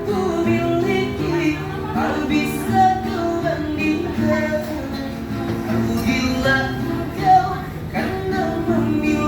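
A busker singing a song to acoustic guitar accompaniment, with long held notes.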